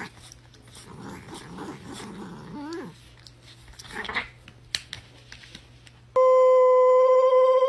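Faint rustling and a short wavering cat cry about three seconds in. About six seconds in, a dog starts a loud, steady, held howl on one note.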